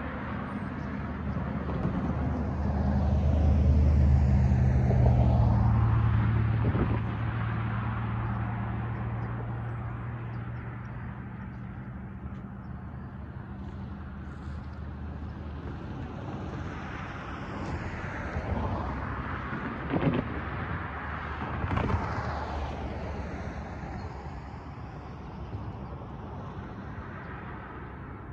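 Road traffic at a railroad crossing. A vehicle's engine hum swells and fades over the first several seconds, then cars pass by with tyre noise rising and falling, and there are two short thumps about two seconds apart.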